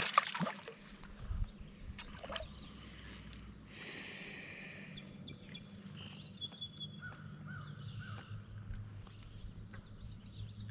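A hooked smallmouth bass splashing and thrashing at the water's surface as it is lifted from the river, then quieter water sounds while it is held. Birds chirp in the background through the second half.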